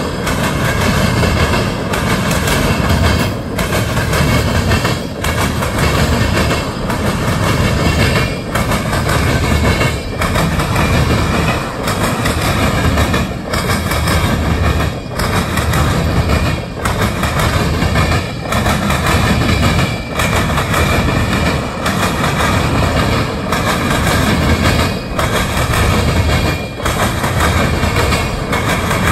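Empty tank cars of a freight train rolling past, loud steady wheel-on-rail noise with a clickety-clack that swells and dips in a regular beat as each car goes by, about every second and a half to two seconds.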